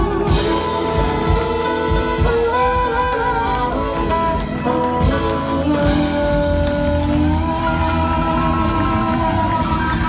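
Live blues band playing: a woman singing with held, bending notes over keyboard, guitar and drums, with a harmonica played into a cupped microphone.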